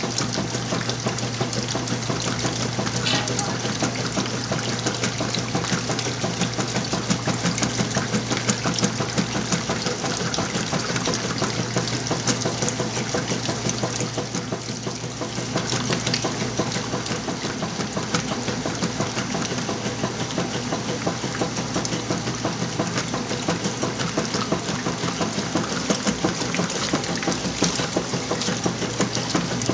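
Whirlpool washing machine running a wash cycle: steady motor noise and water churning with a full load of clothes, with a low hum that drops out about two-thirds of the way through.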